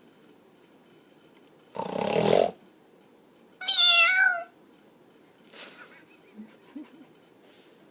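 A man snores once, loud and harsh. About a second later a cat gives a single meow that bends slightly in pitch, and a faint breathy sound follows.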